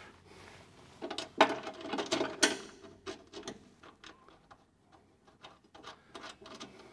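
Steel nuts being threaded by hand onto the bolts holding a snowblower leveling wheel: small metallic clicks and taps as nuts, bolts and the wheel's housing are handled, with a louder run of knocks between about one and a half and two and a half seconds in.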